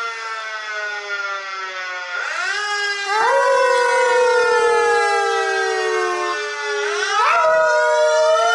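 Small dog howling in long drawn-out notes, each rising at the start and then sliding slowly down in pitch, with new howls starting about two seconds in and again near the end, along with a fire truck siren sound.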